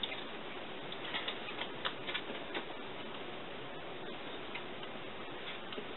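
Faint scattered clicks and taps of playing cards being handled and laid on a card table, mostly in the first half, over a steady hiss.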